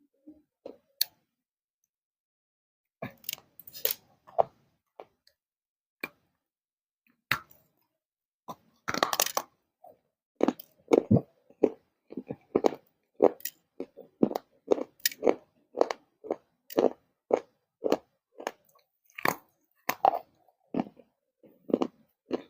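A person biting and chewing crunchy baked clay close to the microphone: scattered crunches, one longer crunch about nine seconds in, then steady chewing at about two crunches a second.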